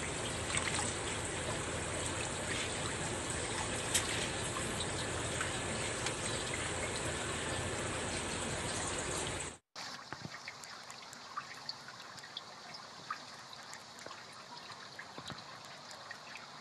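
Water bubbling and running steadily in a goldfish tank, with a few small splashes. It cuts off abruptly a little under ten seconds in and gives way to a quieter trickle with scattered small drips and pops.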